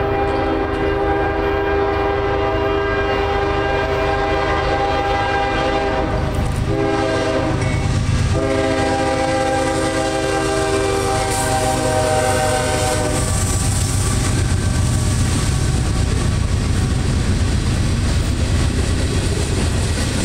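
CSX ES40DC diesel locomotive's multi-chime air horn blowing for a grade crossing: a long blast, a short one and another long one, stopping about 13 seconds in. Under and after it, the locomotive's low rumble and the clatter of covered hopper cars' wheels rolling past on the rails.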